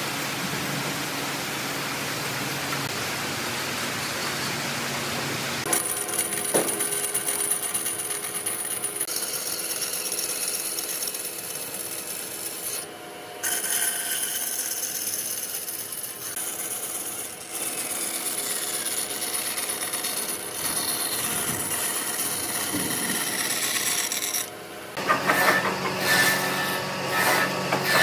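Bandsaw running and cutting through a pine plank: a steady high whine over the noise of the blade in the wood, broken by a couple of short gaps. Near the end it gives way to a quick run of knocks and taps from wooden parts being handled.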